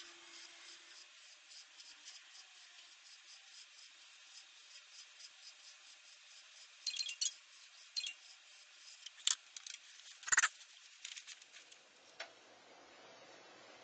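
A pet brush drawn through a long-haired cat's fur in quick, repeated scratchy strokes, with a few louder clicks and one thump between about seven and eleven seconds in. The brushing stops about twelve seconds in, leaving only a faint steady hiss.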